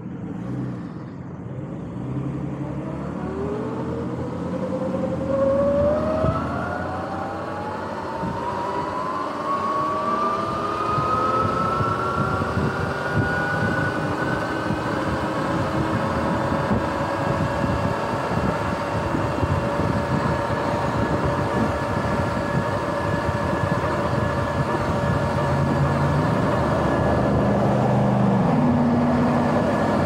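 Sur-Ron X electric dirt bike's motor and drivetrain whining, the whine climbing steadily in pitch as the bike accelerates from a stop, then holding steady at cruising speed. A rush of wind noise builds with the speed.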